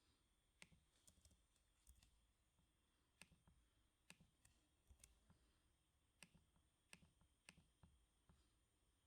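Soft, slow clicks of computer keyboard keys, single presses spaced irregularly about once a second rather than a run of fast typing.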